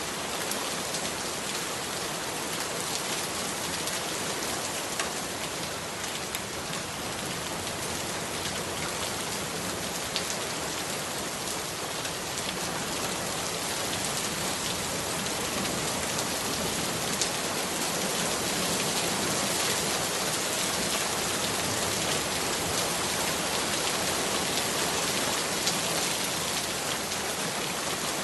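Heavy rain falling steadily, a dense hiss with scattered drop hits, growing a little louder about halfway through.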